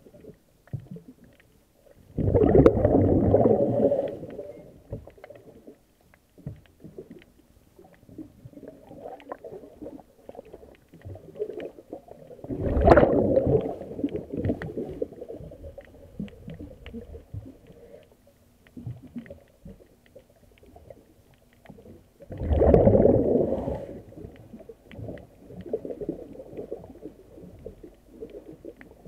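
Underwater: a diver's exhaled breath bubbling out of the regulator in three bubbly gushes about ten seconds apart, with faint crackling ticks between the breaths.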